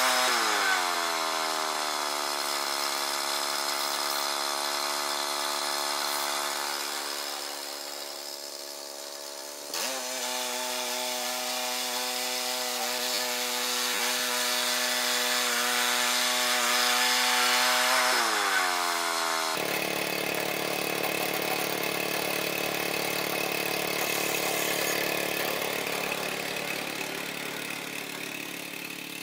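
Gasoline engine of a portable band sawmill running under load while the blade cuts a pine log: the engine note sags as the blade bites into the wood and climbs back as it clears the cut. About two-thirds of the way through, the sound changes abruptly to a lower, rougher engine running.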